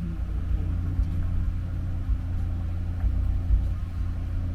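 Motor vehicle driving, a steady low road-and-engine rumble with a faint even engine hum over it.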